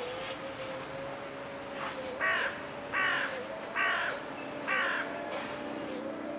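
A crow cawing four times at an even pace, starting about two seconds in, over a steady hum.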